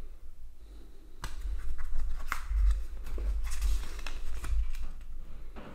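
A card coin presentation booklet being handled and its pages turned: scattered sharp clicks and short paper-and-card rustles, over a low rumble of handling noise.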